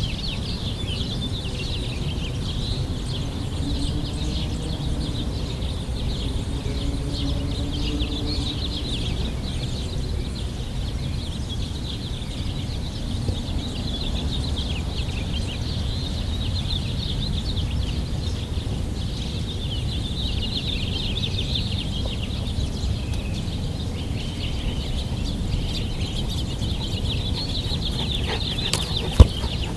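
Many small birds chirping continuously over a steady low rumble, with a few sharp knocks near the end.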